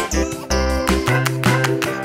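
Upbeat background music for children, with a steady beat and a bouncing bass line.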